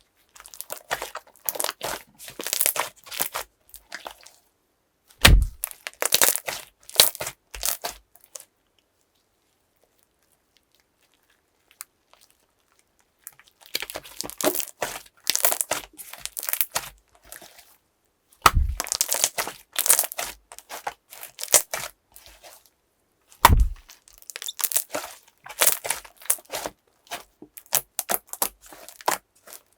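Slime being squished and stretched by hand, giving dense crackling and popping in bursts, with three louder pops that carry a low thud. The sound stops for about five seconds partway through.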